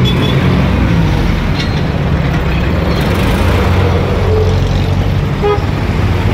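Motor scooter riding slowly in heavy traffic: steady engine and road noise, with wind on the microphone. A short vehicle horn toot sounds about five and a half seconds in.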